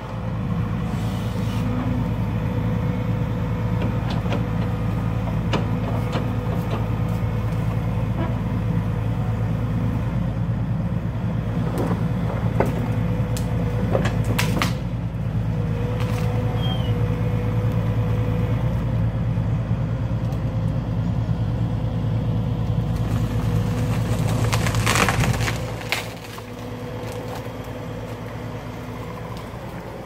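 Tracked excavator's diesel engine running steadily under hydraulic load while its tree-shear head works on a trunk, with several sharp cracks of splitting wood. The loudest crack comes about five seconds from the end, after which the engine settles to a lower, quieter running.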